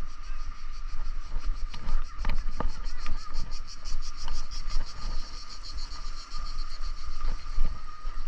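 Wind rumbling on the microphone of a moving bicycle, with cicadas singing in a fast, pulsing high buzz and a few sharp clicks.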